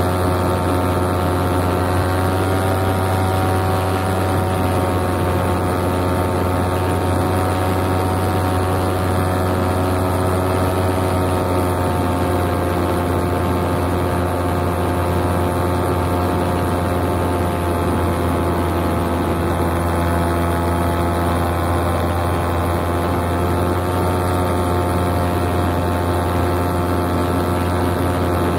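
Paramotor engine and propeller running steadily in cruising flight: an even, unbroken drone whose pitch drifts only slightly up and down.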